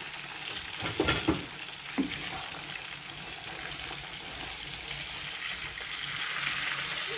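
Whole tilapia frying in hot oil in a pan, a steady sizzle. A few sharp knocks and scrapes of a utensil against the pan come about a second and two seconds in, as the fish, stuck to the pan, is forced loose.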